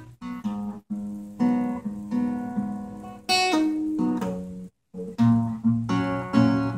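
Acoustic guitar playing an instrumental passage of plucked and strummed chords, with two short breaks.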